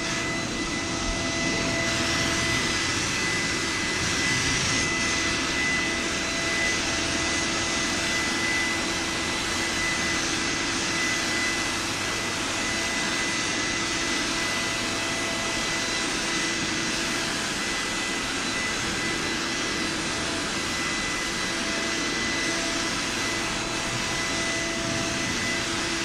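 HVLP paint sprayer spraying primer onto cabinet doors: a steady hiss of air and paint from the gravity-feed spray gun over a constant whine.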